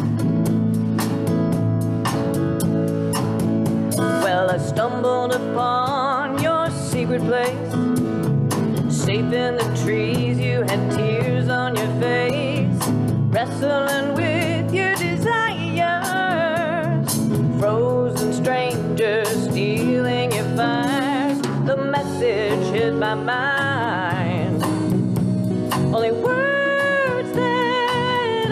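Live band playing a soft-rock ballad: strummed acoustic guitars and drums under a woman's lead vocal sung with vibrato.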